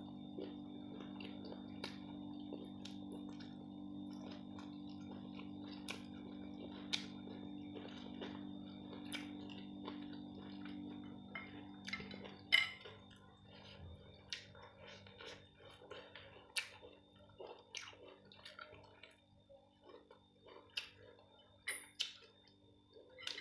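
Eating sounds: scattered light clicks and clinks of a spoon against a plate or bowl while a corn dish is eaten. A steady low hum runs under them and fades out about halfway through.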